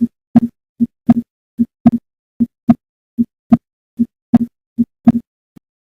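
Heart sounds at the pulmonary auscultation area (second left intercostal space): a regular lub-dub, about seven beats at roughly 75 a minute. Each beat is a pair of short, low thuds with silence between the pairs and no murmur.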